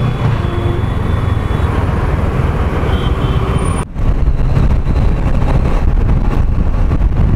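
Motorcycle riding in road traffic: steady engine and road noise, with a brief break in the sound about four seconds in.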